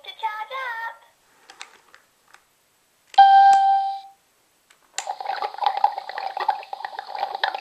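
Electronic sound effects from a Chuggington Interactive toy train set's speakers. A single steady beep comes about three seconds in and lasts under a second. From about five seconds there is a noisy, crackling effect with a steady tone through it as the lineside accessory is worked.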